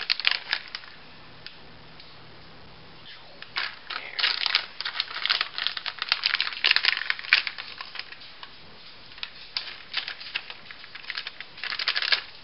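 Plastic packet of ready-crisp precooked bacon crinkling and crackling in bursts as it is handled and the bacon is shaken out, with a pause of about two seconds near the start.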